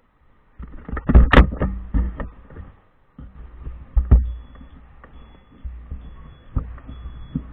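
Handling noise on a helmet-mounted action camera: irregular knocks, bumps and rubbing against the camera and helmet, loudest about a second in and again about four seconds in.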